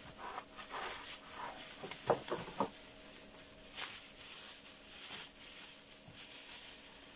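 Thin plastic bag rustling and crinkling as it is handled and pulled open, in short irregular crackles.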